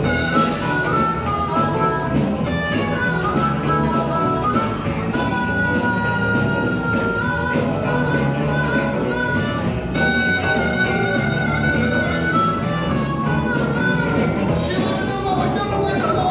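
Live blues-rock band playing an instrumental passage: drums, bass, electric guitar and keyboards, with a harmonica holding long notes about five seconds in and again about ten seconds in.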